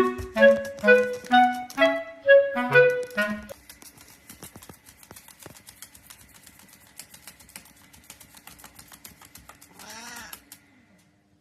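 A clarinet-like tune plays for about three and a half seconds, then stops. A dog's claws then scratch and click rapidly as it digs, for about six seconds. A short animal cry comes near the end.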